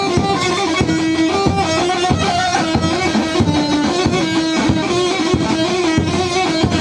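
Kurdish halay dance music: a fast, busy melody on an amplified plucked string instrument over a steady drum beat.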